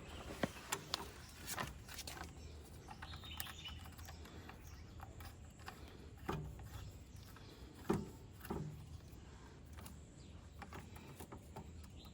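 Faint scattered clicks and taps of metal parts being handled as a bolt is worked into a motorcycle exhaust clamp, over quiet ambience with a few short low sounds past the middle.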